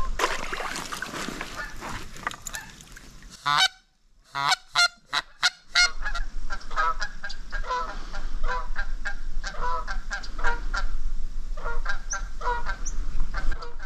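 A goose honking over and over in a long series of short calls. The first few seconds hold a rushing noise that fades before the honking starts.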